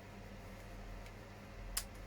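A sharp click of hard injection-moulded plastic kit parts being pressed or set together, a fainter tick about a second in, over a low steady hum.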